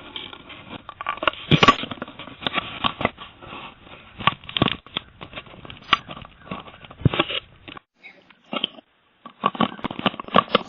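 Ring video doorbell being handled and pried at as someone tries to pull it off its mount, heard through its own microphone: irregular scraping, tapping and crackling knocks right at the mic. The sound cuts out almost completely for about a second around eight seconds in.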